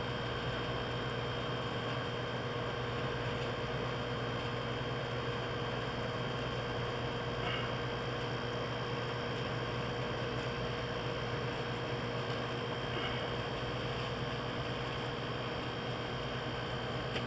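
A steady hum and hiss with a constant high whine, unchanging throughout, with no distinct event.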